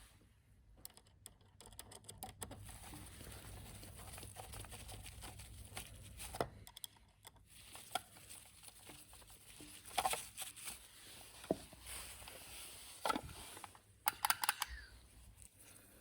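Workshop handling noises from hands working on motorcycle parts: scattered light clicks, taps and rustling, with a few sharper clicks about six, ten and thirteen seconds in and a quick run of clicks near the end.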